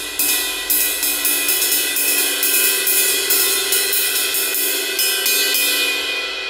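Domene Wox Vintage 21-inch ride cymbal played with the tip of a drumstick, several strokes a second. Each stroke gives a stick click over the cymbal's ringing metallic ping. The strokes stop near the end and the cymbal rings on.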